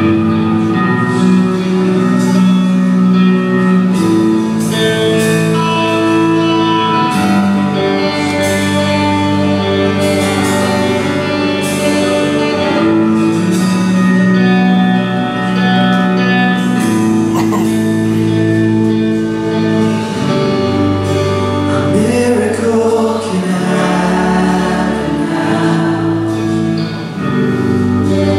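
Live worship band playing a slow song, with guitars and keyboard under a woman singing lead.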